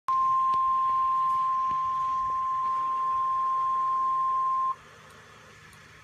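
Emergency Alert System warning tone, the single 1050 Hz alert tone of NOAA Weather Radio, announcing a severe thunderstorm warning. It is one steady, loud beep held for about four and a half seconds, then it cuts off suddenly.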